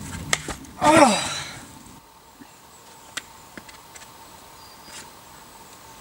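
A climber's loud grunt of effort about a second in, its pitch dropping sharply, preceded by a couple of sharp clicks. Faint scattered clicks follow.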